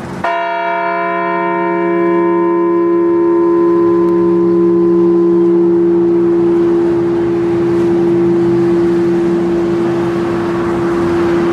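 A large bell struck once and left to ring. Its higher tones fade within a few seconds while the deep hum rings on, a memorial toll for a fallen veteran.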